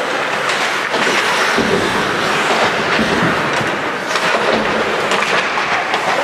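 Ice hockey play at the rink: skate blades scraping the ice, with scattered clacks of sticks and puck, over a steady rink din. A low rumble joins in for a few seconds in the middle.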